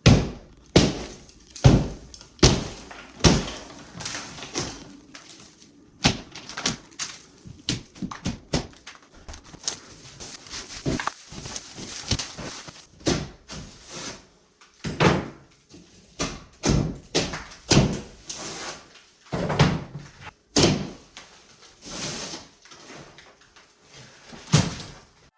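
Sheetrock being knocked and torn off an interior wall: irregular thuds, knocks and crunching of broken drywall, with a run of sharp blows about one a second at the start.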